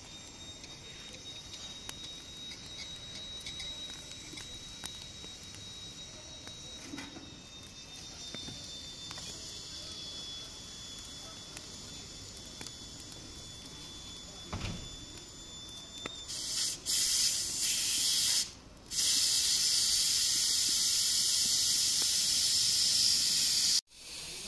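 Boiling water in a Turkish double teapot (çaydanlık) on a wood stove: a thin steady whistle of escaping steam, then about two-thirds in a loud steady steam hiss. The hiss breaks off once briefly and stops suddenly near the end.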